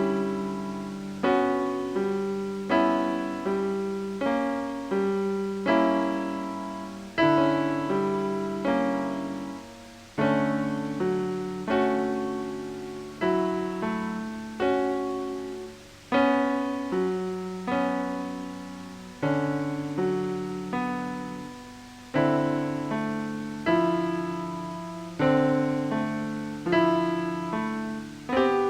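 Slow solo piano music: single notes and small chords struck about once a second, each left to ring and fade before the next.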